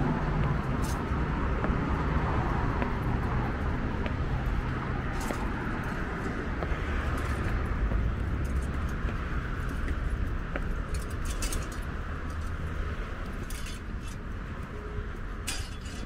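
Outdoor urban ambience: a steady low rumble, likely traffic, that slowly fades, with scattered light clicks and clinks.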